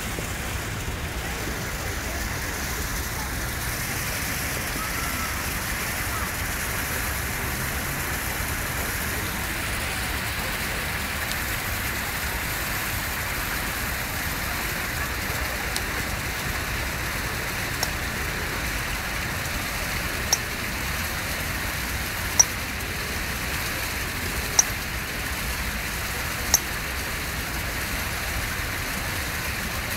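Steady hissing outdoor background noise with nothing standing out of it, broken in the second half by five short sharp clicks about two seconds apart.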